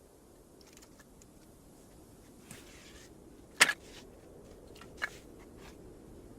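Quiet handling sounds over a faint steady background: a brief swish, then a sharp knock about three and a half seconds in, doubled right after, and a smaller knock about a second later.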